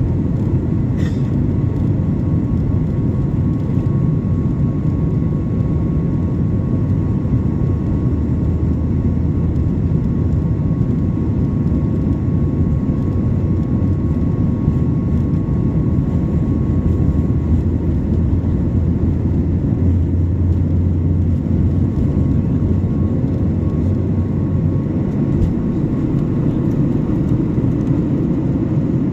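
Boeing 737 jet engine and airframe noise heard from inside the passenger cabin next to the wing engine: a steady low rumble with a faint steady high tone over it, and a brief click about a second in.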